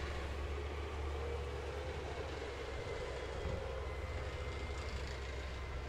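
Leopard 1 tank driving past, its V10 diesel engine running with a steady low drone and its steel tracks rolling.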